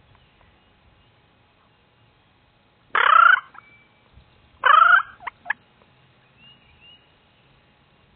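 Wild turkey gobbling twice, about a second and a half apart, each a short loud rattling burst; the second is followed by a couple of short notes.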